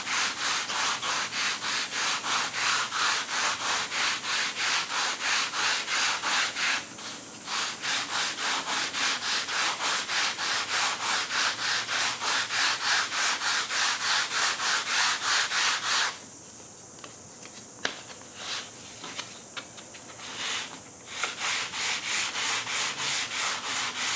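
Hand sanding with 120-grit sandpaper, rounding the bottom edge of a model-airplane aileron: quick, even back-and-forth rasping strokes, about three a second. The strokes stop briefly after about seven seconds, then pause for several seconds past the middle, with a few small clicks, before resuming.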